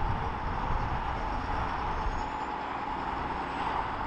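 City bus driving past with its engine running, over a steady wash of road-traffic noise. A faint high whine rises and then falls about halfway through.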